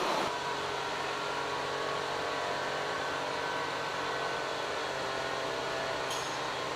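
Car running steadily with a low, even engine hum and road noise, with a short click near the end.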